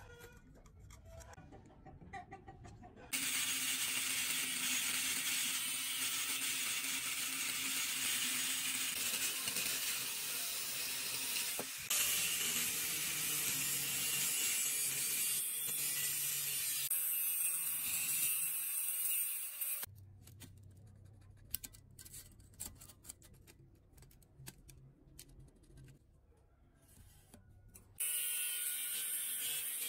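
Angle grinder with a thin cut-off disc cutting through steel bar: a loud, steady grinding hiss that starts about three seconds in, after faint handling sounds. It stops about two-thirds of the way through, leaving a quieter stretch of scattered clicks, and the cutting starts again near the end.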